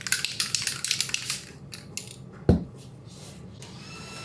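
Rapid clicking rattle of an aerosol spray-paint can being shaken, its mixing ball knocking inside, stopping about a second and a half in; then a single loud thump about two and a half seconds in.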